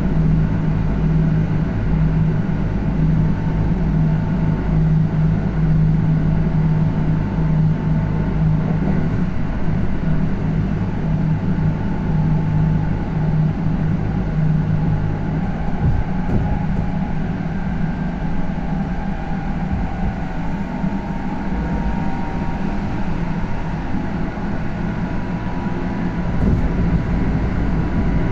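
Kintetsu electric train with GTO-thyristor inverter drive running at speed, heard from inside the car: a steady rumble of wheels on rail with a low motor and gear hum and a faint high whine that shifts slightly in pitch, and one short knock about halfway through.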